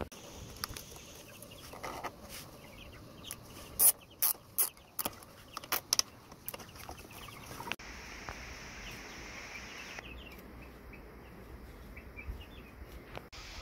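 Chickens clucking in the background, with a run of sharp, separate clicks from about two seconds in to about six and a half seconds in, as plastic cable ties are fastened and snipped on the coop netting.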